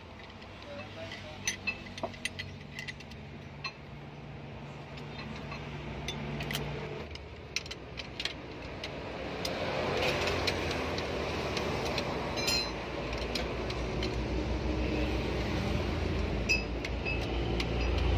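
Light metallic clicks and clinks of hand tools against the rocker arms and valve adjusters of a diesel cylinder head, a few sharp ones close together early on. From about halfway a steady background rumble of a vehicle engine grows louder and holds.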